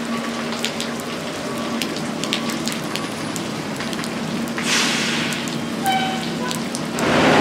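Steady rain falling on a flooded street, with scattered single drop hits on the water. Near the end a vehicle comes up close and loud, its tyres hissing through the standing water.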